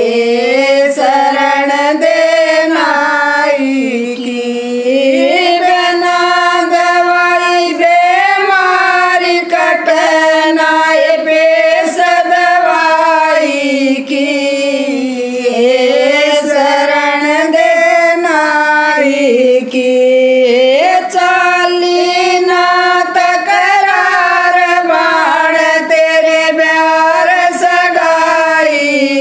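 Women's voices singing a Haryanvi folk bhajan (jakdi) together in long, gliding, held phrases.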